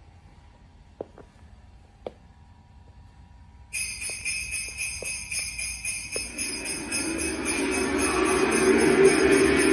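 Sleigh bells start jingling suddenly a little over a third of the way in, the intro of a Christmas song's backing track. The band's instruments join and swell louder toward the end. Before the bells there is only faint room tone with two small clicks.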